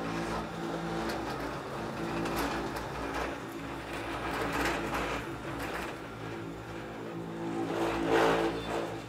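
Cable car gondola running along its haul cable: a steady mechanical hum with light rattles and clicks. It swells louder about eight seconds in as the gondola passes over a tower's roller assembly.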